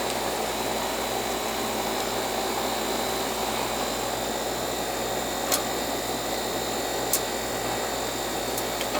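Coleman central air conditioner running steadily, a constant fan-and-compressor hum and rush. The technician diagnoses a bad TXV, with the suction line not coming back cold. Two short sharp clicks about five and a half and seven seconds in.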